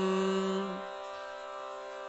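Steady, sustained musical drone accompanying a Sanskrit stotra recitation, heard between chanted lines. A stronger low held note fades out about a second in, leaving the drone alone and quieter.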